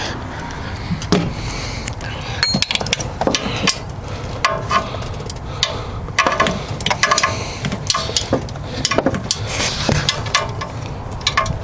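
Irregular metallic clinks and taps of a socket wrench with a universal joint being fitted against exhaust header bolts, over a steady low rumble of the truck's engine running.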